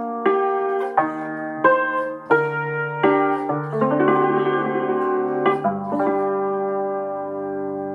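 Țambal (concert cimbalom) played with mallets: a run of struck notes that ring on, a rapid tremolo roll about halfway through, then a low chord struck about six seconds in that sustains and slowly dies away.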